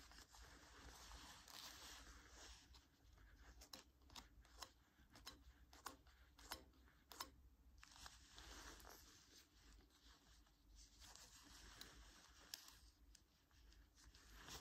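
Faint handling noise: leather gloves rustling and rubbing as they turn a metal jew's harp over, with several light clicks in the middle and one more near the end. No note from the harp's tongue.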